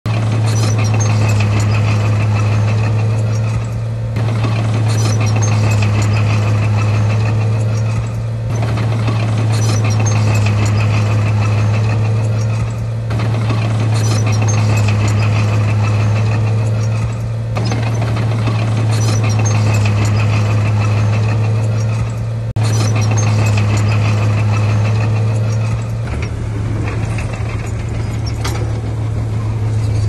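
Diesel engine of a heavy earthmoving machine working under load. Its steady deep note eases off and picks up again about every four and a half seconds, with a brief clank as each surge begins.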